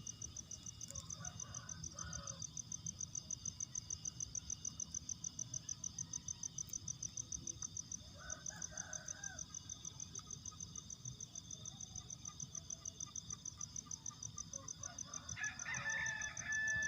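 Roosters crowing faintly a few times, with a louder crow near the end, over an insect's steady pulsing trill at about four pulses a second.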